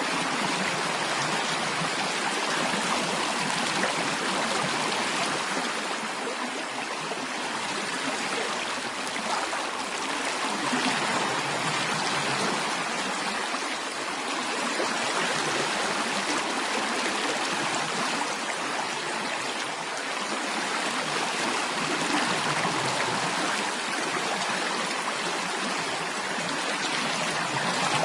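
Steady sound of flowing stream water, an even rush and trickle.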